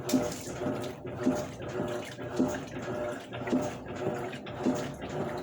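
Electrolux LAC12 top-loading washing machine agitating, water sloshing as the agitator swings back and forth, with a strange repeating pulse about every half second, stronger about once a second, on top of a humming tone. The cause of the noise is unknown to the owner in a machine that arrived the day before.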